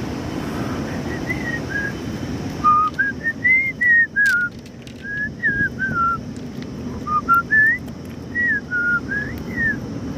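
A person whistling a tune in short, sliding notes over the steady rush of river water.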